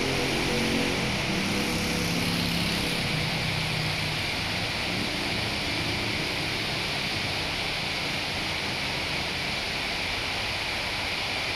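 Heavy rain pouring down onto corrugated metal roofs: a dense, steady hiss. A low droning hum fades out over the first few seconds.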